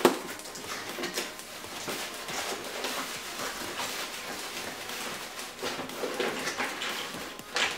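Handling noise: a steady rustle with many small clicks and knocks of objects being moved about, with a sharp click at the start and another near the end.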